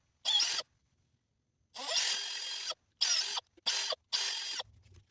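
Power drill run in five short trigger bursts, the longest about a second, its motor whine rising and falling with each squeeze.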